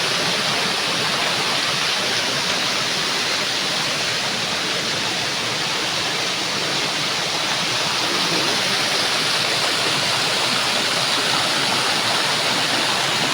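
Irrigation channel overflowing at high flow, water spilling over it like a small waterfall: a steady, loud rush of falling water.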